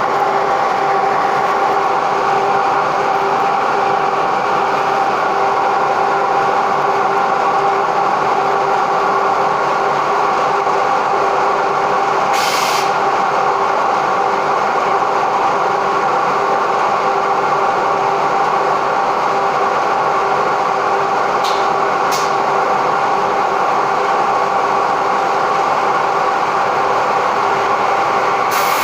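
Automatic edge banding machine running with a steady mechanical hum. There is a short hiss about twelve seconds in, two sharp clicks later on, and another hiss starting near the end.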